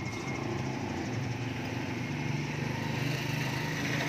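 Small motorcycle engine running steadily nearby at a constant pitch, over street traffic noise.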